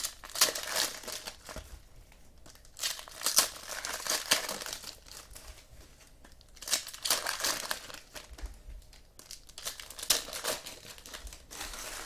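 Trading-card packs being torn open, their wrappers crinkling, in several short bursts with brief pauses between.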